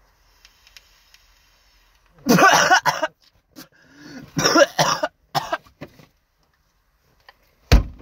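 A man coughing hard in two fits after a hit from a Juul-style nicotine vape, preceded by a faint breathy exhale. Near the end there is a single loud thud.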